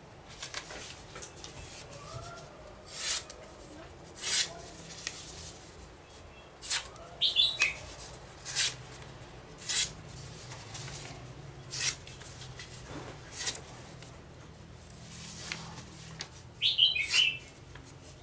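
Short scraping strokes of hand work on a wooden workbench, at irregular intervals of about a second or so, over a low steady hum. A bird chirps briefly twice, once about seven seconds in and once near the end.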